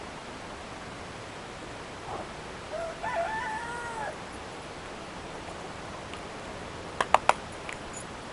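A rooster crows once, a single call of just over a second starting about three seconds in. Near the end come three quick, sharp clicks.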